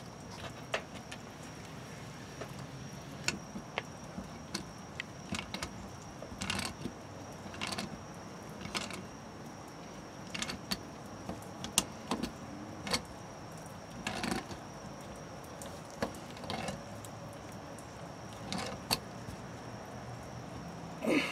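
Tongue-and-groove pliers and a plastic RV city water inlet clicking and scraping against a brass fitting as the inlet is screwed on and tightened, in scattered irregular clicks.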